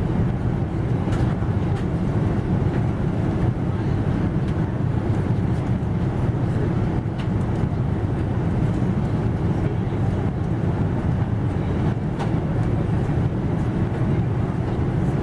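Steady cabin noise inside a Boeing 777 airliner, the even low rumble of engines and airflow heard from an economy seat, with a few faint clicks.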